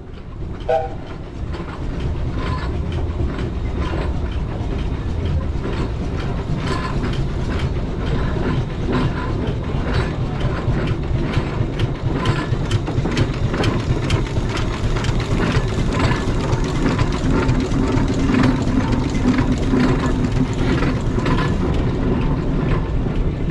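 Fowler steam traction engine running under way: steady exhaust chuffs of about two beats a second over the clatter of its motion, growing a little louder as it comes close.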